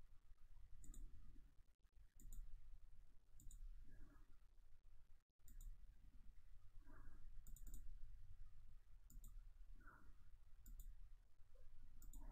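Faint computer mouse button clicks, a dozen or so, some single and some in quick pairs, as anchor points are placed along a path in a drawing program.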